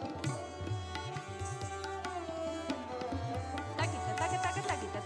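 Indian classical music with tabla drumming under a melodic string line. About four seconds in, the melody turns to quick bending pitch glides.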